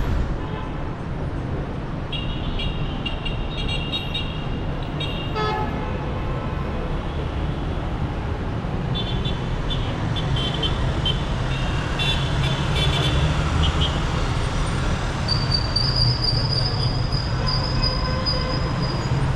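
Dense city street traffic: engines running in a constant low rumble, with car horns honking several times in short toots and longer blasts. A thin high steady tone sounds for a few seconds near the end.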